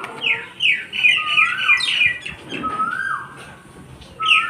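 Animal calls: runs of quick, high falling chirps mixed with slower whistled notes that rise, hold and drop. They come in several groups, with a lull a little before the end.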